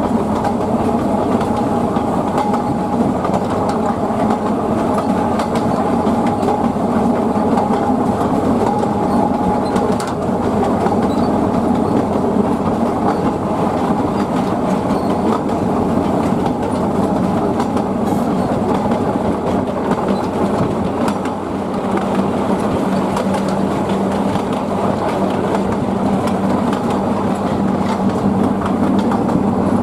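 Narrow-gauge passenger train running along the track, a steady rumble with faint wheel clicks. A steady hum comes in about two-thirds of the way through.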